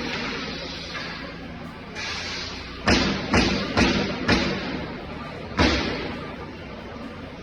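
A series of heavy thumps on wooden pallet boards: four sharp knocks about half a second apart, then one more a second later, each with a short ring after it, over a steady background noise.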